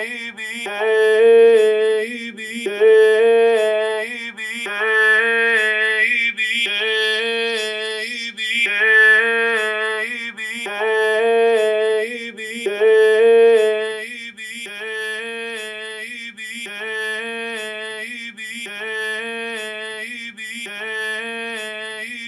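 A short sung vocal phrase, recorded on a laptop's built-in microphone, playing on a repeating loop while it is equalised. A bright band climbs through the upper range in the middle, then from about two-thirds of the way through the loop sounds quieter as frequencies are cut.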